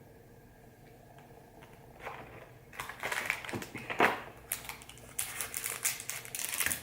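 Trading card pack wrapper crinkling and rustling as it is handled and torn, starting about two seconds in, with many sharp crackles.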